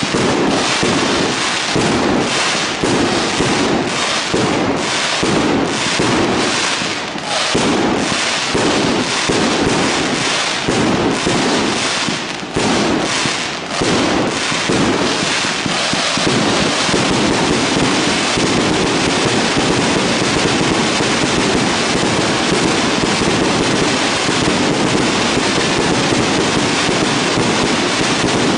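Fireworks display going off: rapid cracks and bangs in quick succession, which from about halfway through merge into a dense, unbroken crackling noise.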